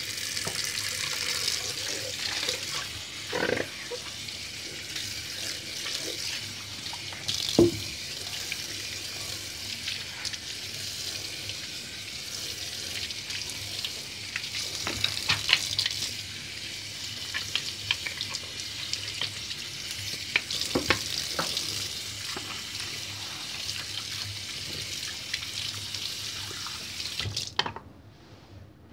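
Kitchen tap running steadily into a sink while a plastic bowl is rinsed under it, with a few knocks as the bowl is handled against the sink. The water is shut off suddenly near the end.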